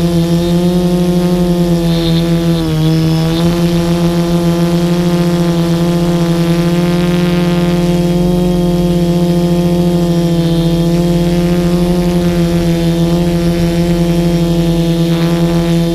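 Multirotor drone's propellers and motors humming steadily from on board, with a brief dip in pitch about two and a half seconds in.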